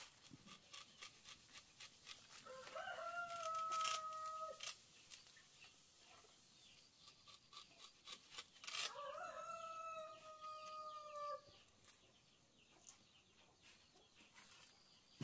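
A rooster crowing twice, each crow one long call of about two seconds, the second coming about six seconds after the first. A run of quick, sharp ticks goes on in the background during the first half.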